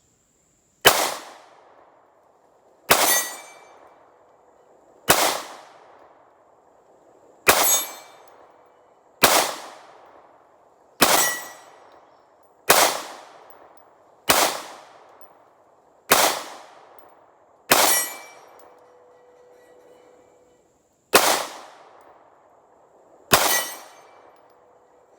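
Twelve pistol shots from a Smith & Wesson CSX 9 mm micro-compact, fired singly about every two seconds, each a sharp crack with a short ringing tail. There is a longer pause before the last two shots.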